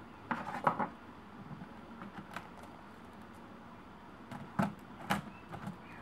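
Plastic clicks and knocks of a loose laptop keyboard being handled and set back into the laptop's case: a quick cluster of clicks in the first second, then two louder knocks about four and a half and five seconds in.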